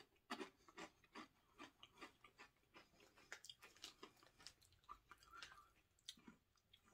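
Faint crunching as a person chews a wavy chili and lemon potato chip with her mouth closed: irregular crisp crunches, two or three a second, thinning out near the end.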